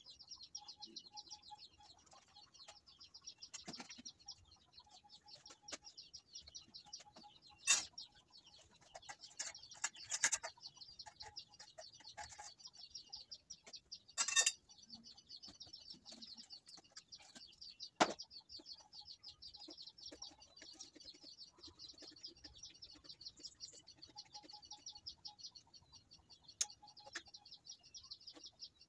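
Fast, continuous high-pitched chirping trill in the background, with a few sharp knocks and clicks breaking in about 8, 10, 14 and 18 seconds in.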